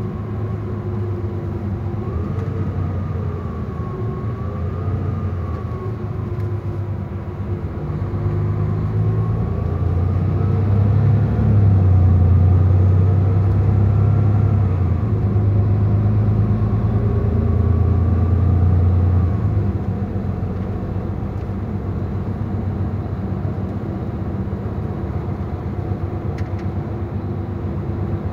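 Mercedes-Benz Tourismo coach's diesel engine running, heard from inside the coach as a low drone. The drone grows louder about a third of the way in, as if pulling under power, and drops back about two-thirds of the way through. A faint whine that wavers in pitch sits above it.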